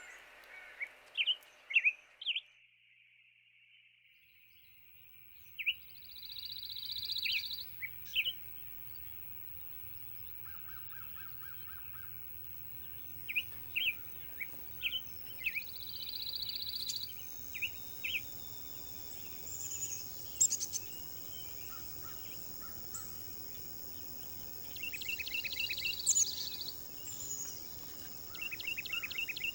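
Small wild songbirds chirping and calling: many short sharp chirps and several buzzy trills about a second long, over a steady high background drone.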